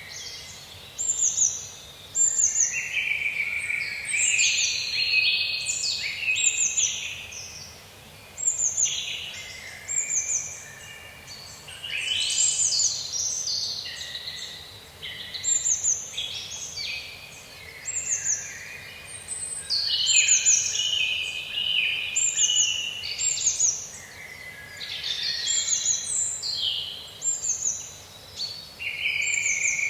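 Songbirds singing in a forest: short, high, falling chirps repeat every second or so, over fuller warbling phrases lower down, with a faint steady background hiss.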